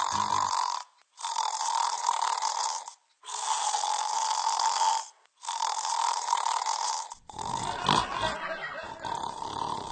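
Snoring: four long snores of about two seconds each, separated by brief pauses. About seven seconds in, a different, fuller noisy sound takes over.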